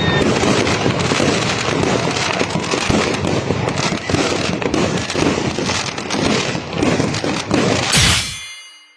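Fireworks going off: a dense, continuous run of bangs and crackles, with a loud burst about eight seconds in, after which the sound fades away.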